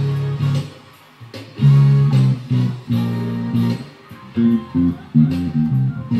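Electric bass guitar played: a held note, a short pause about a second in, then a phrase of plucked notes that moves up and down.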